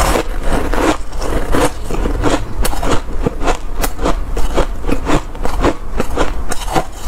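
Close-miked chewing of hard shaved ice and crushed hard ice: loud, repeated crunching, about two to three crunches a second.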